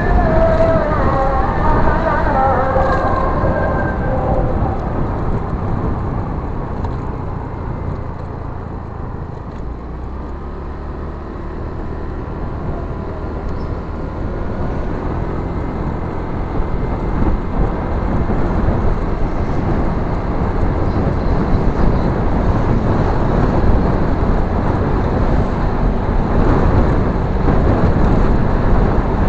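Wind rush and road noise on a motorbike-mounted microphone while riding along a road, with the engine's low hum underneath. The rushing eases off about a third of the way in, then grows louder again.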